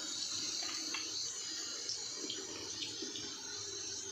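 Cooking oil heating in an iron kadhai over a wood fire, sizzling with a steady hiss and a few faint small pops.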